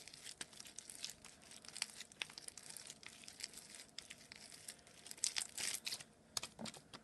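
Foam-bead slime being kneaded and squished by hand, giving an irregular crackling of small sharp clicks and sticky pops, thickest about five seconds in.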